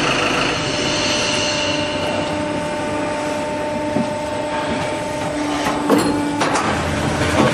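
QT4-15 hollow block making machine line running: a steady mechanical hum and rattle from its electric motors and hydraulic system, with a few sharp knocks near the end.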